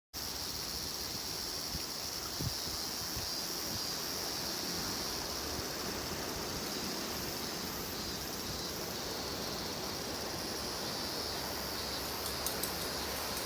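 Steady outdoor ambience: an even, continuous noise with a brighter high hiss, and a few faint ticks about two seconds in and near the end.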